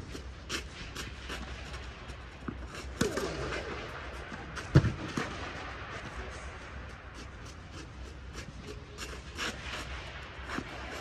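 Tennis balls struck by rackets and bouncing, each hit a sharp crack that echoes around a domed indoor court. The loudest hit comes about five seconds in, with lighter clicks and footfalls on clay around it.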